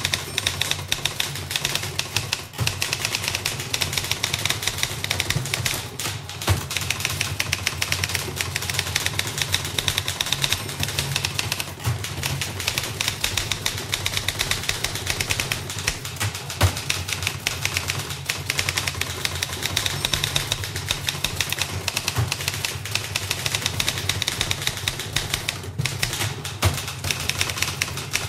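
Two manual typewriters typing fast together, recorded close in an office room: a dense, continuous clatter of key strikes with only brief pauses now and then.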